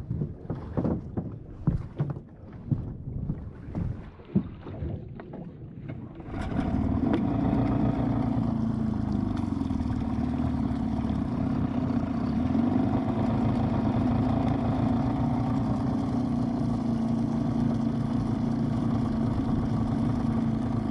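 Irregular knocks and thumps for the first few seconds. Then, about six seconds in, a Yamaha 25 hp two-stroke outboard motor starts running steadily at an even pitch, pushing the aluminum boat along at low speed.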